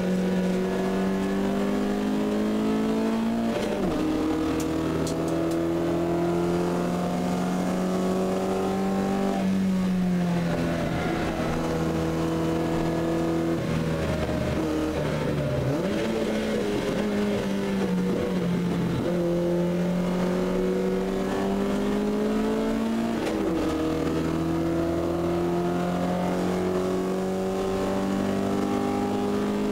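Talbot Sunbeam 1600 Ti's 1.6-litre four-cylinder engine under race load, heard from inside the cabin. Its pitch climbs through each gear and drops sharply at the gear changes and lifts for corners, several times.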